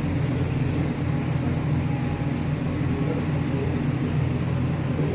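Cruise ship's engines and machinery running, a steady low drone made of several low hum tones over an even rushing noise.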